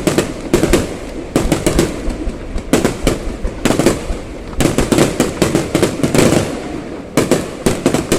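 Aerial fireworks going off in rapid volleys of sharp bangs and crackles, several clusters of reports with short pauses between them.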